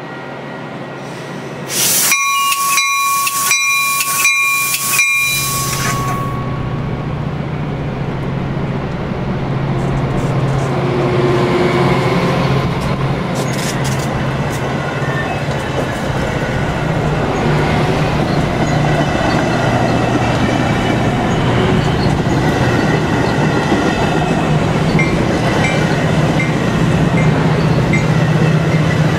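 Metra commuter train of stainless bi-level cars rolling past close by: steady rumble of wheels on rail with clicks, and a low diesel drone from the F40PH-3 locomotive pushing at the rear, growing louder toward the end. Near the start, a loud ringing tone pulses about twice a second for about three seconds.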